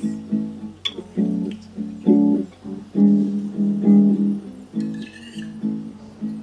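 Background music: an acoustic guitar picking and strumming soft chords in an even, unhurried rhythm, with no singing.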